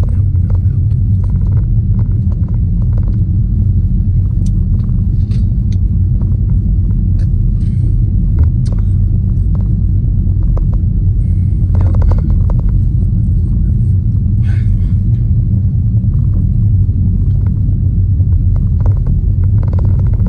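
A steady low rumble under the sounds of someone eating: scattered short crunches and clicks of chewing and handling food, with a small cluster about twelve seconds in.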